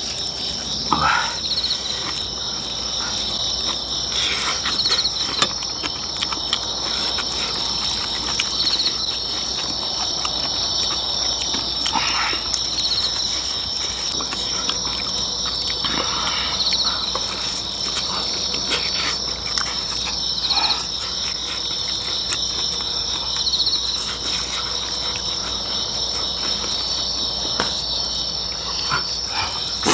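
Crickets chirring in a steady, high chorus, with close-up chewing and lip-smacking of people eating.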